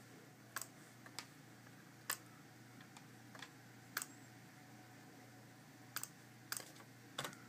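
Computer mouse clicks: about eight short, sharp clicks, irregularly spaced and some in quick pairs, over a faint steady hum.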